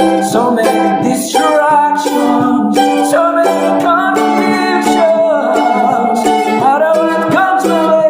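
Mandolin being played: a stream of quickly picked notes over a low note that rings on steadily underneath.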